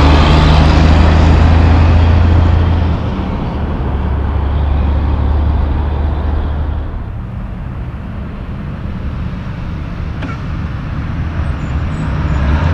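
Diesel engine of a loaded Western Star logging truck passing close with a deep steady drone and tyre noise, easing off and fading after about three seconds. Near the end a second loaded log truck approaches and grows louder.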